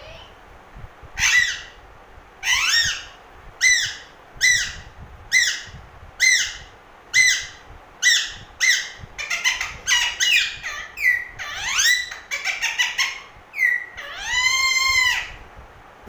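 Young Alexandrine parakeet squawking while it plays and nips at a finger: a string of harsh, upward-sliding calls about once a second, breaking into quicker, choppier chatter past the middle, then one long drawn-out squawk near the end.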